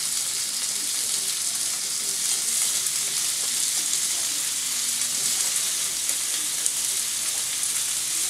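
Marinated chicken tikka pieces sizzling steadily on a very hot, lightly oiled cast iron griddle pan as they are laid down with tongs.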